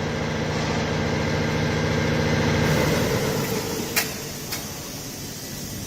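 Automatic fan-grill frame welding machine running with a steady hum that drops off about three seconds in. Two sharp clicks follow about half a second apart.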